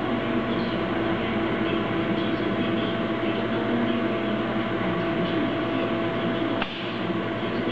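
Hexagon HG-401DT 4 kW high-frequency welding machine running: a steady mechanical hum and hiss with a faint steady tone. A brief click and a short dip in level come near the end.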